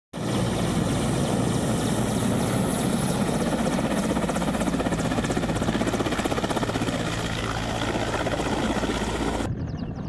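Mil Mi-17-type twin-turbine transport helicopter running close by, a steady rapid rotor beat over turbine noise as it flies low and comes in to land. About half a second before the end the sound cuts to a quieter, thinner version.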